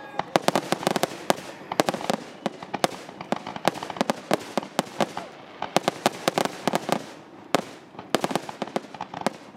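Fireworks going off: a rapid, irregular series of sharp bangs and crackles that comes in dense clusters.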